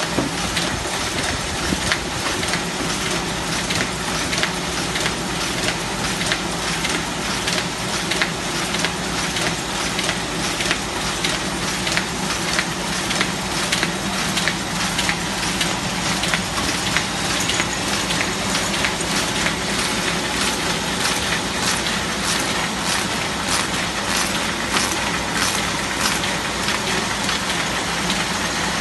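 Shoei K.66 buckle-and-knife paper folding machine running in production, a steady mechanical clatter with sharp clicks repeating about twice a second, clearer in the later part.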